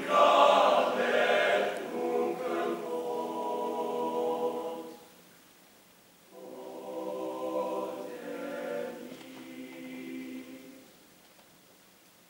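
Unaccompanied male-voice choir of about seventeen teenage singers singing sustained chords. A loud phrase breaks off about five seconds in, a softer phrase follows, and it stops again near the end.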